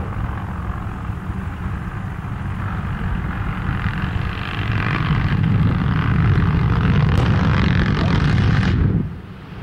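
Explosive detonations blasting earth out of a dirt road: a short sharp bang at the start, then a continuous low rumble that grows louder and heavier over the last few seconds and cuts off suddenly near the end.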